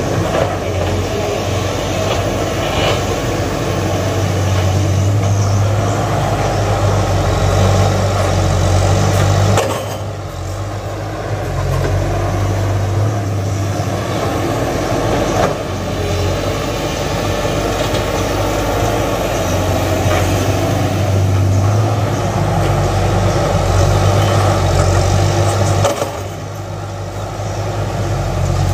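Backhoe's diesel engine running under load during ground leveling, a steady deep hum. It drops back briefly twice, about ten seconds in and again near the end, then builds up again.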